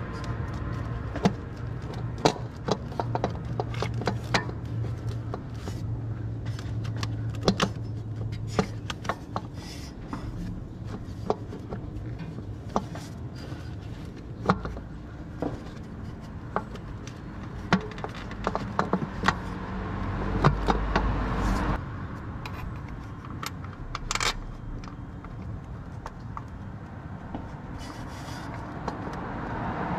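Irregular metal clicks, clinks and scrapes of hand tools and parts being handled during car repair work, one to three sharp knocks a second, over a steady low hum.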